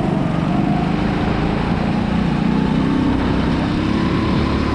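Go-kart engine running at speed, heard up close from the kart itself, its pitch climbing slightly in the second half as the kart speeds up.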